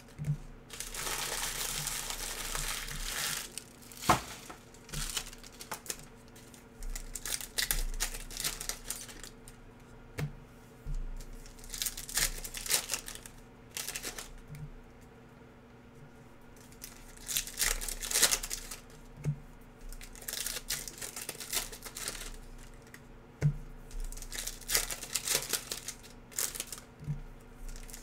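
Plastic wrapping of a trading card box and its card packs being torn and crinkled by hand, in irregular bursts with quiet gaps and a few sharp clicks.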